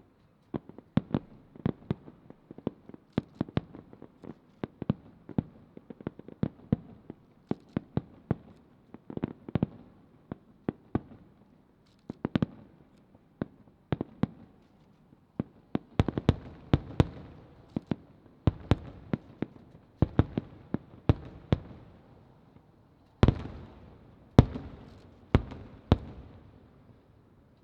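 Aerial fireworks display: dozens of shells bursting in quick succession as sharp bangs, each fading with a short echo. The heaviest booms come in clusters in the second half.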